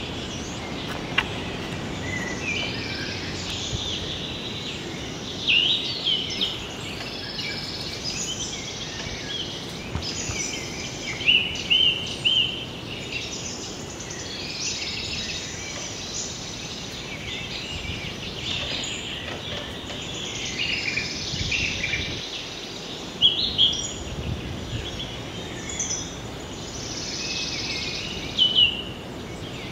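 Outdoor ambience of birds chirping over a steady background hiss. Short high chirps come throughout, with louder clusters of calls a few times.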